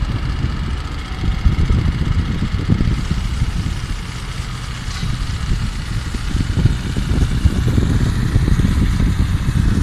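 Walk-behind power trowel's small petrol engine running steadily as its rotating blades finish wet concrete.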